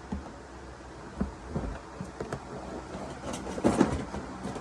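Car driving with a steady low road rumble and a few short knocks and clicks. A denser run of knocks comes about three and a half seconds in.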